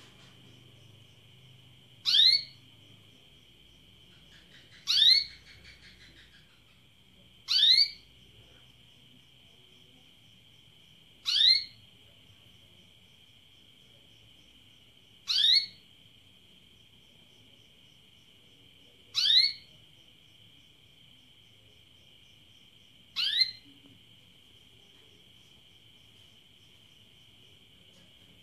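Female domestic canary giving its call to be mated: short upward-sweeping chirps, one every three to four seconds, seven in all.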